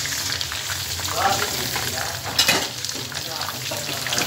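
Chicken pieces frying in a shallow layer of oil in a frying pan: steady sizzling and crackling, with one sharp pop about halfway through.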